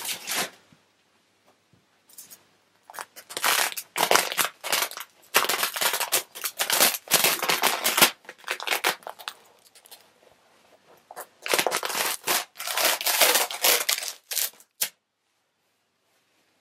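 Resin-soaked paper towels and plastic release film being peeled off a cured fibreglass-and-balsa layup, crinkling and tearing in two long spells with a short lull between them.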